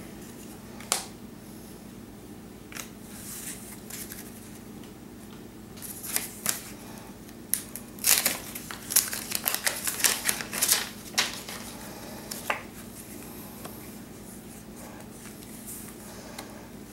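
A wax pack of baseball cards being torn open by hand: a flurry of crisp crinkles and rips through the middle, with a few single card flicks before and after. A steady low hum runs underneath.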